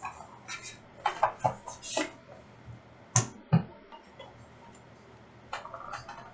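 Trading-card packaging and cards being handled: a run of short rustles and clicks, with a sharper snap about three seconds in.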